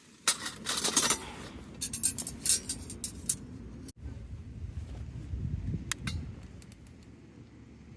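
Rustling, then a run of light clinks and clicks in the first few seconds; after a break, a low rumble with a couple more clicks.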